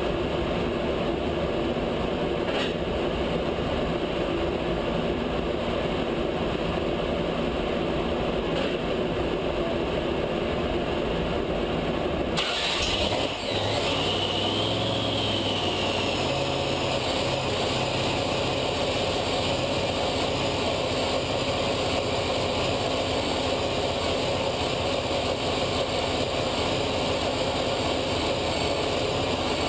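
Supercharged V8 engine idling steadily on an engine dyno. About twelve seconds in the sound changes abruptly, and a high whine wavers for a couple of seconds before the steady idle resumes.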